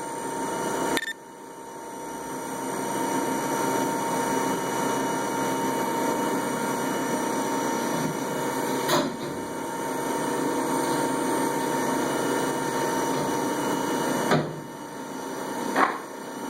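CNC milling machine running steadily with a constant whine over a broad machining noise, breaking off sharply a few times.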